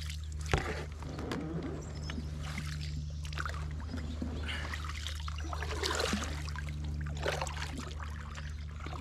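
Double-bladed kayak paddle strokes through a creek choked with floating weeds: repeated splashes and water trickling off the blades, over a steady low hum.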